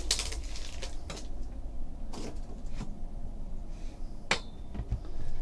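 Trading cards being handled after a foil pack is opened: a brief crinkle of the foil wrapper at the start, then a few light clicks and taps of cards, the sharpest about four seconds in.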